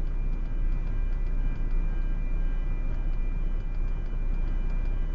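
Steady low engine rumble heard from inside a truck cab on a ferry's vehicle deck, with a faint regular ticking over it.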